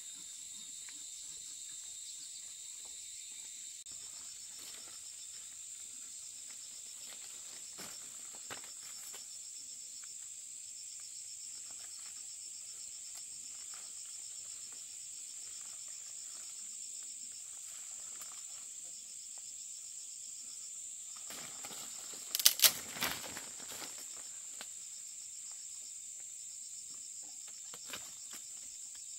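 A steady, high-pitched insect chorus with a faster pulsing trill beneath it. About three quarters of the way through, a brief cluster of sharp knocks.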